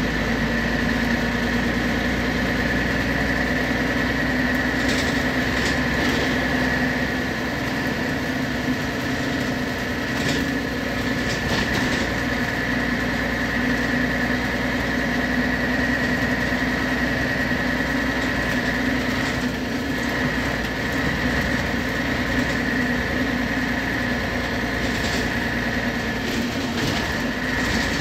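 Scania CN113CLL city bus heard from inside the passenger cabin: the engine runs with a steady hum and a constant high whine over it, and a few brief rattles from the interior.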